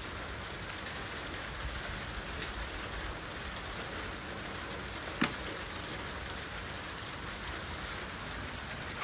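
Steady rain-like hiss with faint scattered ticks, and one sharp click about five seconds in.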